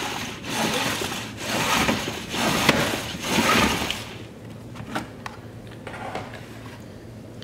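Plastic salad spinner spinning washed wild chanterelle mushrooms, throwing off the wash water: a whirring that swells and fades about once a second and stops about four seconds in. A few light plastic clicks follow as the lid comes off.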